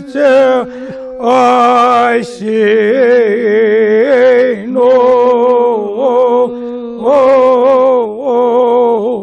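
Elderly man chanting a Kashmiri marsiya, a sung elegy for Imam Hussain, in long drawn-out phrases with a wavering vibrato and brief pauses for breath between lines.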